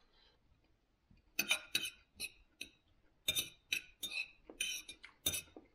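Metal fork scraping and clinking on a plate while scooping up food, in a quick run of short strokes that starts about a second in.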